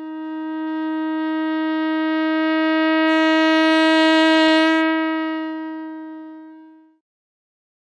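One long, steady note from a blown horn. It swells to its loudest about four and a half seconds in, then fades away and stops about seven seconds in.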